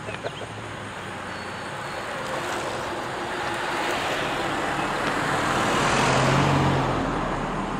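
A motor vehicle passing on the road: tyre and engine noise swells gradually to a peak about six seconds in, with a low engine hum at the loudest point, then begins to fade.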